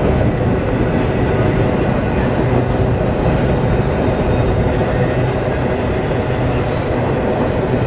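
Intermodal freight train's cars rolling steadily across a steel girder bridge: a continuous low rumble, with brief high-pitched wheel squeals about three seconds in and again near the end.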